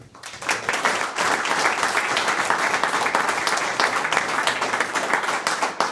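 Small group of people applauding, a dense patter of hand claps that swells up about half a second in and keeps going steadily.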